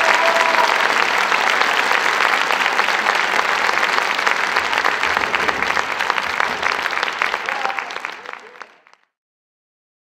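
Audience applauding, a dense spread of clapping that fades away about eight seconds in.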